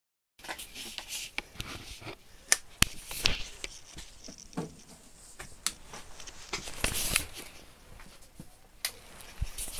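Scattered small clicks and knocks, a few sharp ones about two and a half to three seconds in.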